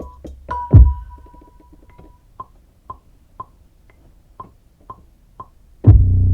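Sparse electronic beat from a sampler or drum machine. A few percussion hits and a deep kick come near the start, then short wood-block-like clicks tick about twice a second. Near the end a loud, low sustained synth chord comes in suddenly.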